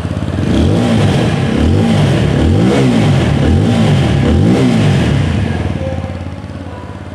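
TVS Apache RTR 160 4V's 159.7cc single-cylinder air-cooled fuel-injected engine revved in quick throttle blips about once a second through its exhaust, then settling back to idle near the end.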